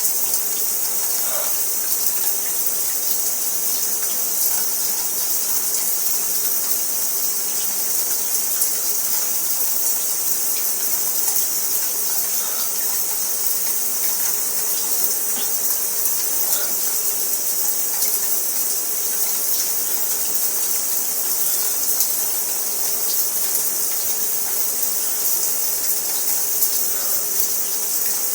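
Shower spray running steadily, a constant high hiss of water.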